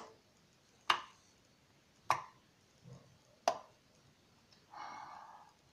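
Fluffy slime being poked and pressed by hand, giving sharp pops about a second apart as air pockets burst, then a softer, longer squish near the end.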